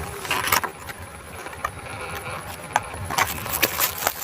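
A microphone stand being unpacked by hand: rustling packaging with scattered small clicks and clinks as the parts are handled.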